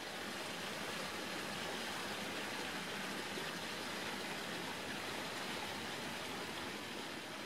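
Steady, even rushing noise with no tone or rhythm in it.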